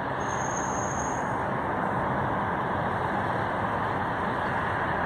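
Diesel locomotive of VIA Rail's The Canadian approaching, its rumble growing steadily louder. A brief, high, thin tone sounds for about a second near the start.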